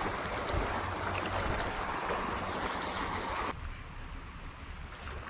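Steady rush of running water that cuts off abruptly about three and a half seconds in, leaving a quieter background.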